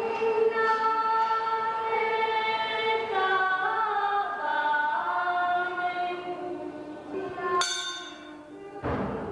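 Choir singing a slow song in long, held notes. Near the end a sudden click cuts in, and the singing drops away for about a second before it resumes.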